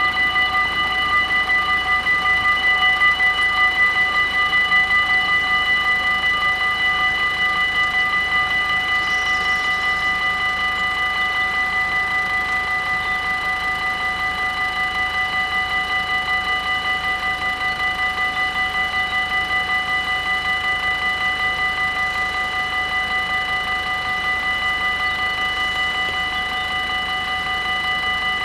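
Level-crossing warning bells ringing in a rapid, steady pattern while the half-barriers are down, warning of an approaching train.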